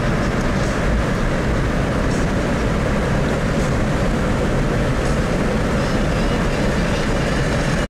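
Steady engine and tyre noise inside the cab of a vehicle driving at road speed on a paved road.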